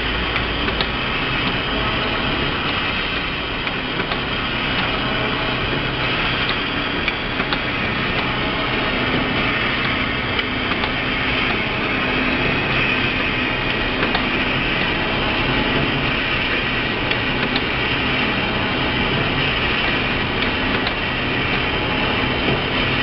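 Automatic lunch-box sealing and packing machine running: a steady mechanical clatter with scattered sharp clicks from its moving sealing heads and conveyor.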